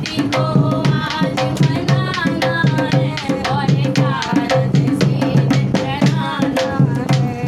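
Two women singing a Hindi devotional folk song, a Ganesh bhajan, to a hand-played dholak drum keeping a steady rhythm.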